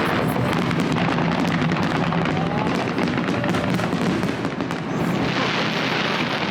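Fireworks display: aerial shells bursting with dense crackling. About five seconds in, a louder hissing rush of crackle swells up.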